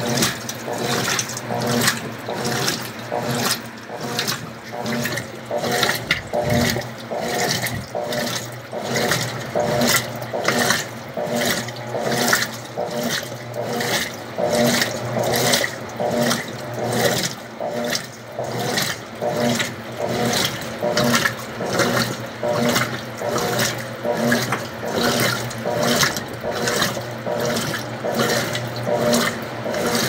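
Colormaq LCA11 Black top-loading washing machine agitating a load of cloths and towels in rinse water: rhythmic sloshing and churning that surges about once a second as the agitator swings back and forth.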